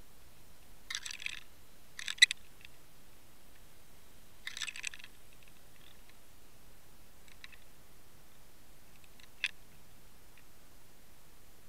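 Short clusters of rattling clicks over a faint steady hiss, heard underwater through a camera housing: bursts about one and two seconds in, the second the loudest, another near five seconds, and a single sharp click later on.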